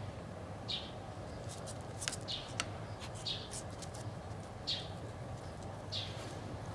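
A bird giving a short high chirp over and over, about once a second, with a few faint clicks between the calls.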